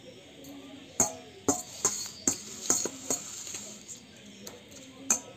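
Metal spoon clinking and scraping against a cooking pot or serving dish: a quick run of sharp, ringing clinks over about two seconds, then one more near the end.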